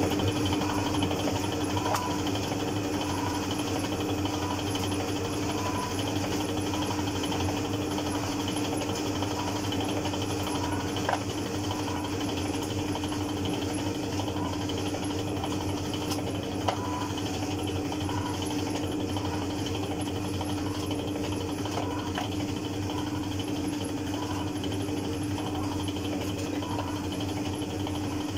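Motor-driven noodle-dough rolling machine running steadily, a constant hum as dough sheets feed through its steel rollers, with two brief sharp clicks partway through.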